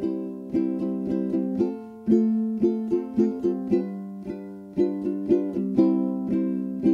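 Background music: a plucked string instrument picking a steady run of quick notes.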